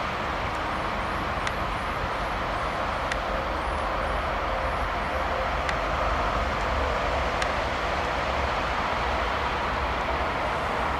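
Diesel locomotive running light and approaching: a steady engine drone that grows slightly louder about halfway through.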